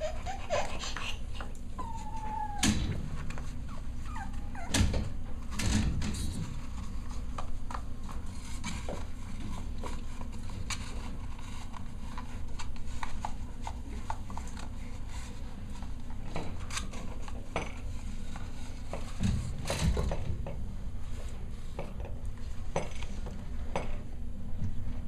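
Cavalier King Charles spaniel puppies at play: scattered light knocks, clatters and scuffles of paws and toys, with one short squeak about two seconds in.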